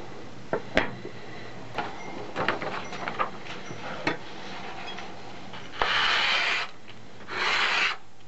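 Steel knives knocking and clicking as they are handled and set down on a wooden tabletop, then two long swishing cuts as a knife forged from a motorcycle connecting rod slices through a sheet of paper, testing its sharpness.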